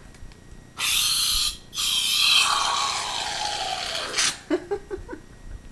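Aerosol whipped-cream can spraying: a short hissing burst about a second in, then a longer hiss of about two and a half seconds with a falling tone through it, as cream is sprayed into a mouth.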